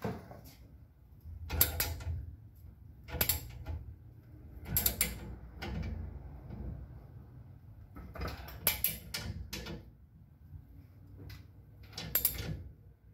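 Ratchet wrench clicking in short spells, with metal clinks, as the screw of a leaf-spring spreader is cranked to open the spring for new shackles.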